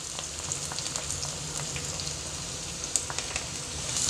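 Freshly added chopped onions sizzling in hot oil in a kadhai: a steady sizzle with scattered small pops and crackles. Near the end a wooden spatula starts stirring them and the sizzle gets louder.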